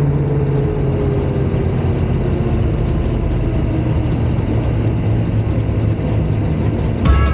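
Race car engine running steadily at low speed, a deep even rumble. Music starts right at the end.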